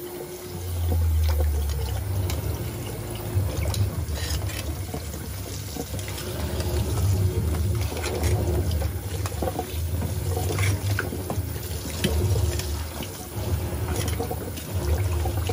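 Tap water running into a basin of live blue crabs in a stainless-steel sink, with scattered sharp clicks and clacks as the crabs are stirred and lifted with metal tongs.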